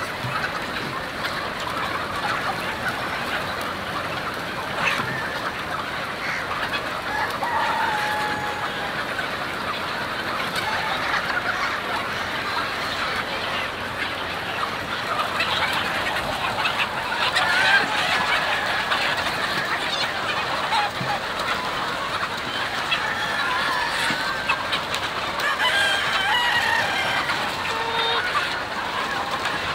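A huge flock of chickens, hens and roosters, clucking and calling over one another in a dense, steady din, with a few longer calls standing out now and then.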